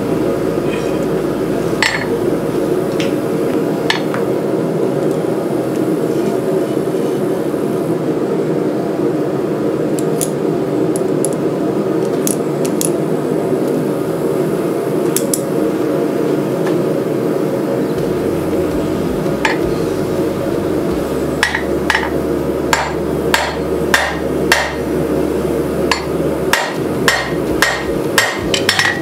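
Hand hammer striking red-hot rebar blade steel on an anvil. There are a few scattered blows at first, then a quick run of strikes about two a second over the last several seconds, above a steady background roar.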